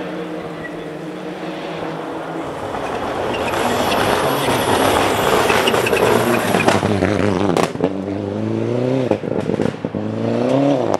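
Toyota Celica GT-Four rally car at full throttle, getting louder as it comes past close by. About two thirds of the way in the driver lifts off to brake for the bend: a few sharp cracks, then short blips of revs.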